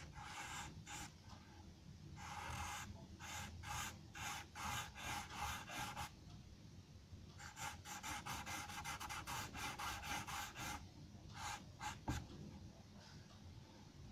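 Charcoal pencil scratching across drawing paper in quick back-and-forth shading strokes. The strokes come in runs, with a fast, dense flurry in the middle and a single light tick near the end.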